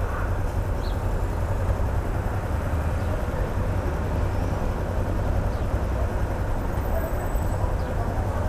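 Yamaha XTZ 250's single-cylinder engine idling steadily at a standstill, with city traffic passing.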